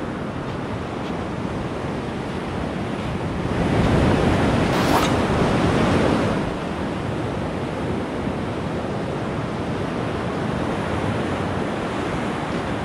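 Ocean surf breaking and washing up a sandy beach, a steady rush that swells louder for a couple of seconds about four seconds in, then settles back.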